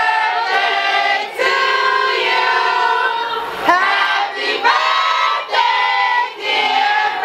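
Several voices singing together in harmony, in long held notes that glide between pitches, phrase after phrase with short breaks, without a bass or drum beat underneath.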